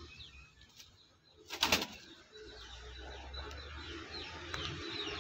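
Caged spotted dove flapping its wings in a short burst about one and a half seconds in, amid faint high chirps of small birds. After it, a low rustling noise builds toward the end.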